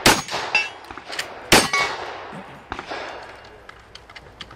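Two gunshots from a cowboy action shooting long gun, one at the start and one about a second and a half later. Each is followed by a short metallic ring that fades, the sound of steel targets being hit.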